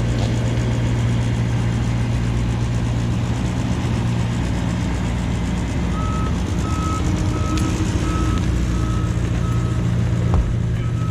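Truck engine running steadily, and about halfway through its reversing alarm starts beeping, about three even beeps every two seconds: the truck is backing up.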